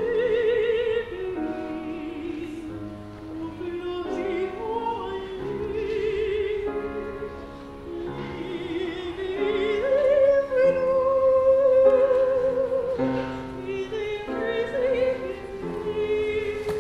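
Soprano singing an art song in operatic style with wide vibrato, accompanied by an upright piano. She swells to a long held note, the loudest moment, about ten seconds in.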